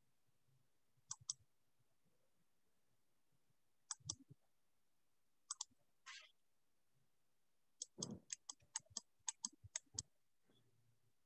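Computer keyboard and mouse clicks over a quiet room: a few double clicks, then a quick run of about a dozen key presses near the end.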